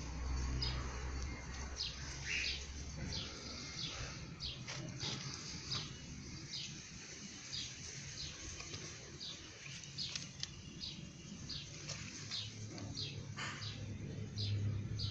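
Small birds chirping, short high chirps repeated about twice a second, over a faint low hum.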